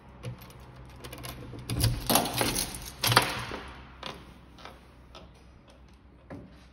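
A key turning in an apartment entry door's lock, with a run of metallic clicks and clacks as the bolts draw back. The loudest clacks come about two and three seconds in, followed by fainter clicks as the handle is worked and the door swings open.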